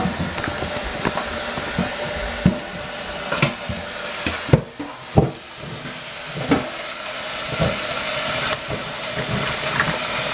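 Kitchen faucet water running steadily onto figs in a metal colander in a stainless steel sink, easing briefly a little before halfway. A few light knocks sound through it as the fruit is handled.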